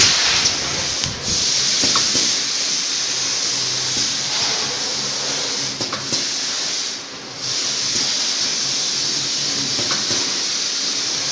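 Automatic screen printing machine for rectangular buckets running in full-automatic mode: a steady hiss of air with a faint low hum. The hiss drops briefly about two thirds of the way through, and faint clicks come about every four seconds as the machine cycles.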